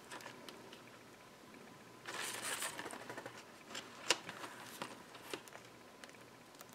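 Faint handling noise of multimeter test leads and probes: a short stretch of rustling about two seconds in, then a few light clicks, the sharpest about four seconds in, as the probe tips are set against a small diode's leads.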